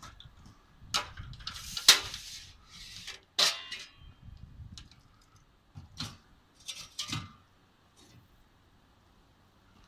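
Folding aluminium loading ramp clanking and rattling as it is handled, unfolded and set down against a car boot: a string of sharp metallic knocks, the loudest about two seconds in.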